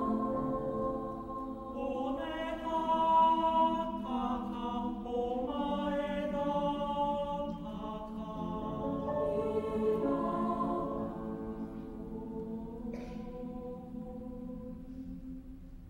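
Mixed choir singing long held chords that shift every second or two, growing softer over the last few seconds.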